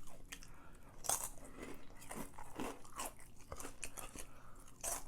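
Close-miked chewing of crunchy food, with irregular crunches about two or three times a second.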